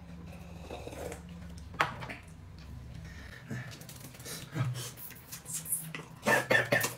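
Someone eating noisily: chewing and slurping mouth sounds in short irregular bursts, loudest in a cluster near the end. A low hum underneath stops about halfway through.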